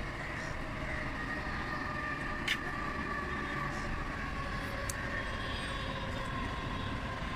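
Steady hum of distant city traffic rising from far below, with a couple of short, sharp clicks of scissors snipping berry stems.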